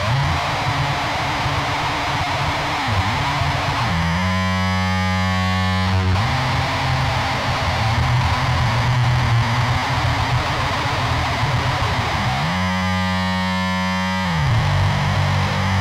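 Heavily distorted electric guitar music: a dense wall of distorted chords, twice giving way to a single held note that slides up into place and back down, about four seconds in and again near the end.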